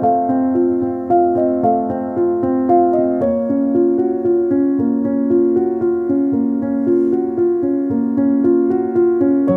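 Background instrumental music, with held notes that change every half second or so.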